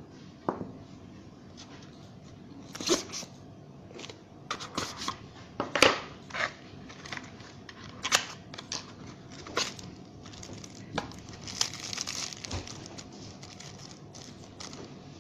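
Hands handling unboxing packaging: a cardboard box insert rustling and knocking, then a small plastic bag crinkling near the end. Scattered sharp clicks and short rustles, irregular and unhurried.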